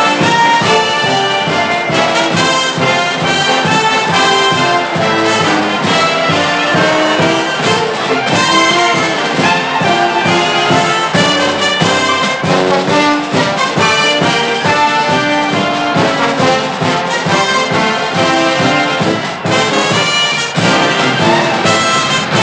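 Orchestral film score with brass instruments carrying the melody over a steady beat.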